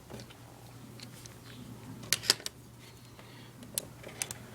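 Scattered light plastic clicks and taps as an Asus X53E laptop keyboard is pried up at its retaining clips, the loudest a close pair about two seconds in, over a faint steady low hum.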